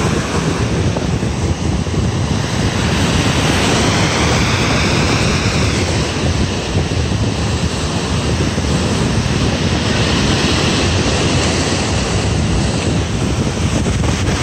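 Steady wind buffeting the microphone outdoors, a continuous rushing rumble, with a car driving past on the road near the start.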